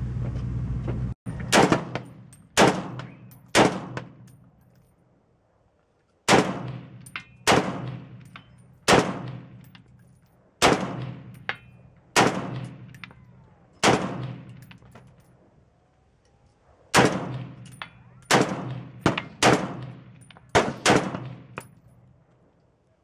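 A semi-automatic .308 AR-10-type carbine with a 16-inch barrel and a Battle Comp muzzle brake firing about fifteen shots, each with a sharp report and a tail lasting about a second. The shots come in irregular strings: three about a second apart, a pause, then shots every one and a half to two seconds, and a quicker string of about six near the end. A steady rushing noise cuts off abruptly about a second in.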